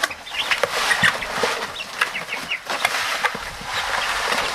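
A brood of young chickens peeping: many short, high chirps over a steady rustle, with a few sharp knocks.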